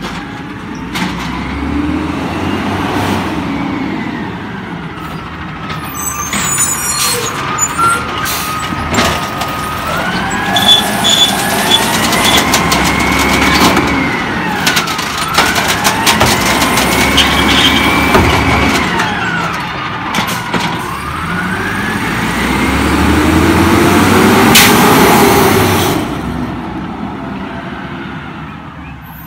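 Peterbilt 320 garbage truck with an Amrep automated side-loader body working: the engine revs up and down several times with a rising and falling whine as the hydraulic arm cycles, with clanks and knocks in the first half. It is loudest a little before the end as the truck drives on, then fades.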